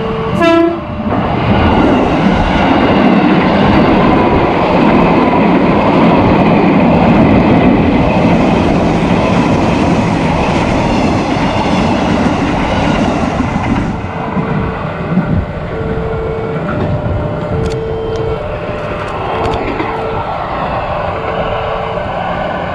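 A KRL JR 205 series electric commuter train gives a short horn blast, then runs past close by, its wheels rumbling and clicking over the rail joints for about thirteen seconds. After it has passed, a level-crossing warning alarm keeps sounding in short repeated tones of two pitches.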